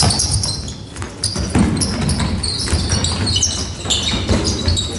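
Handball players running a passing drill on a sports-hall floor: many short, high shoe squeaks, with the thuds of the ball bouncing and of footfalls.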